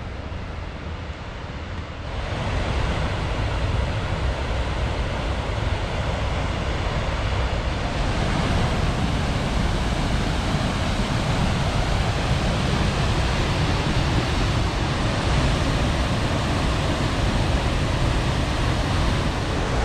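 Waterfall rushing: a steady, loud wash of falling water that grows louder about two seconds in, with a deep rumble underneath.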